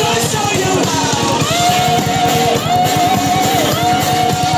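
Rock music with a fast, driving beat; a long held melody line with slight bends comes in about one and a half seconds in.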